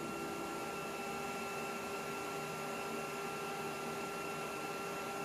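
Running Macintosh SE computer: a steady hum and hiss with a few faint constant whining tones.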